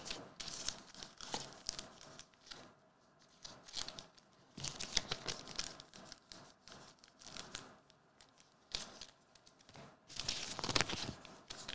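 Trading-card packaging being torn and crumpled by hand, in irregular crackling bursts with short pauses, loudest about five seconds in and again near the end.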